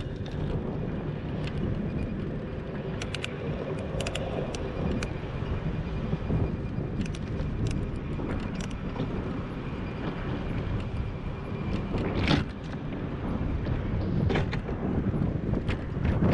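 Riding noise picked up by a camera mounted on a moving bicycle: steady low rumble of wind and tyres on an asphalt cycle path, with scattered clicks and rattles and one sharper knock about twelve seconds in. Car traffic on the road alongside mixes in.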